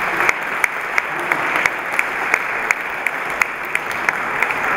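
Audience applauding: many people clapping steadily, with single sharper claps standing out several times a second.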